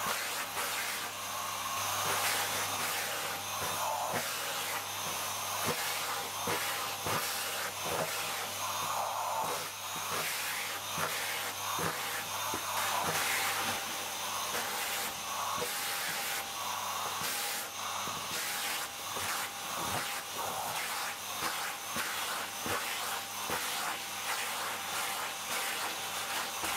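Vacuum cleaner running steadily, with a low hum under its hiss and frequent irregular scuffs and clicks.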